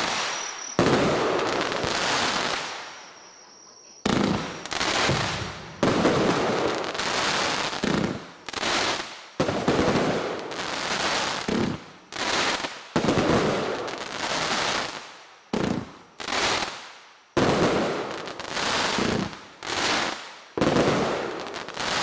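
Pyrocentury Red Chrys firework battery firing shot after shot, about one sudden burst a second, each fading out quickly, with a short lull a few seconds in.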